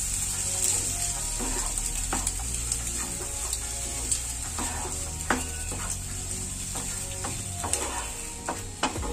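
Wooden spatula stirring and scraping grated boiled egg and onion-tomato masala in a nonstick frying pan, with scattered light clicks of the spatula on the pan over a steady faint sizzle.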